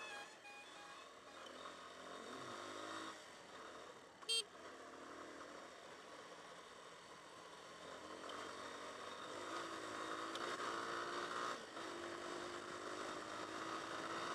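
Hartford VR150's 150cc single-cylinder air-cooled engine pulling up through the gears, its pitch rising in several runs. A few quick horn beeps at the start and one short, loud horn toot about four seconds in.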